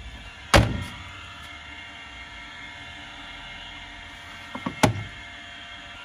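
Door of an LG front-loading washing machine slammed shut over a drum packed with carpet: a loud thunk about half a second in, then a couple of clicks and a second thunk near the end.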